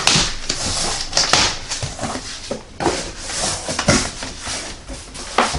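A cardboard shipping box being opened by hand: hissy rasps of packing tape tearing in the first second and a half, then cardboard flaps rustling and knocking.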